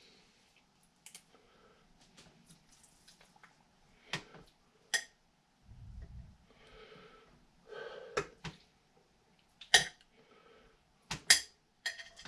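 Kitchen handling noises from dishes and utensils during food preparation: a scattering of sharp clicks and light knocks, a dull thump about six seconds in, and soft rustling in between.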